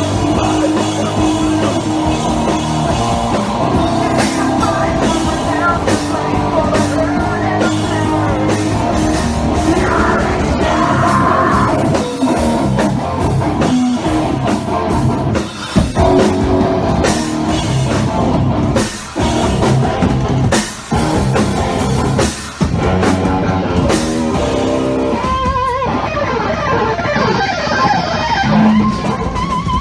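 Rock band playing live at full volume: electric guitars and a drum kit, with some singing.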